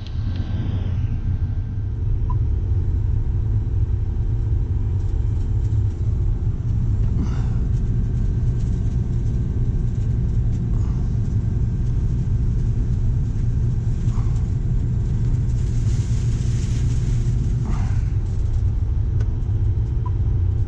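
Strong wind buffeting the microphone: a steady, heavy low rumble, with a stronger gust about sixteen seconds in.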